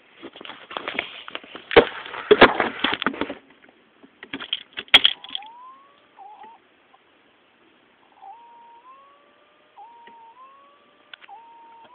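A burst of rattling and knocks, then a faint whine that repeatedly glides up in pitch, drops and starts again, roughly every second or so: the odd noise a Cadillac makes with the key turned back to the accessory position.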